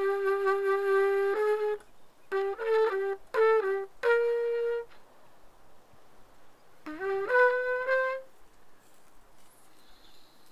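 A wind instrument playing a slow phrase: a long held note, a few short notes, another held note, then after a pause a note that slides up into pitch and holds.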